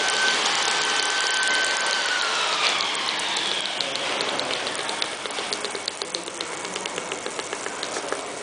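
Induction melting furnace whining with a steady high tone that slides down in pitch and fades about two seconds in. It is followed by a run of sharp ticks, about three to four a second.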